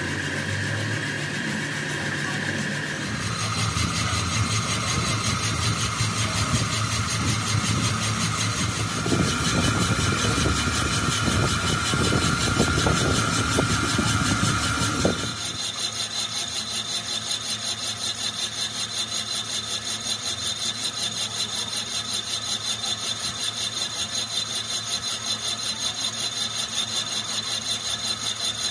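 Machine-shop equipment running on an engine block: a steady whine over a low rumble, which changes suddenly about halfway through to a fast, even pulsing.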